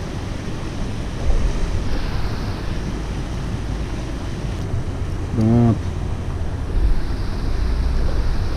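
Steady rush of river rapids, with wind buffeting the microphone about a second in and again near the end.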